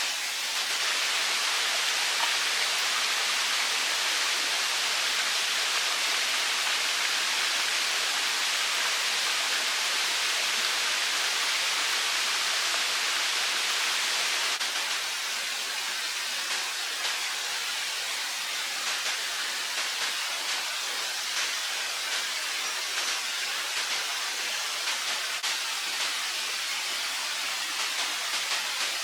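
Steady rush of running water, dropping slightly in level about halfway through.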